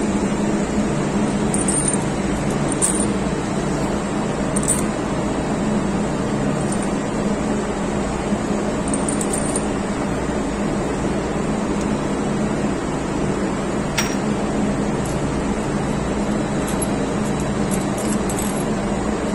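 Steady machinery drone with a strong low hum, running at an even level, with a few faint light metallic clicks from fuel-pump parts being handled and fitted by hand, the clearest about two-thirds of the way through.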